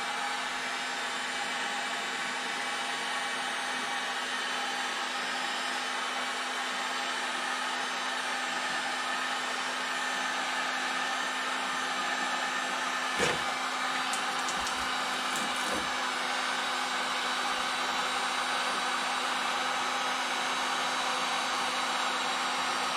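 Electric heat gun running steadily, its fan blowing with a constant hum, while softening old car trim for removal. A sharp knock about halfway through, followed by a few fainter ones.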